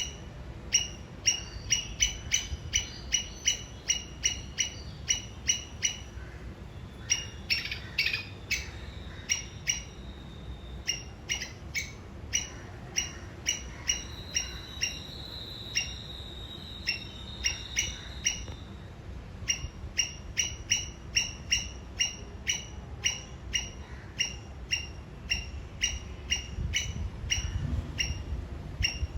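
A squirrel giving its sharp chirping alarm call over and over, about three chips a second, in long runs with a looser stretch in the middle: the warning signal a squirrel gives at an enemy.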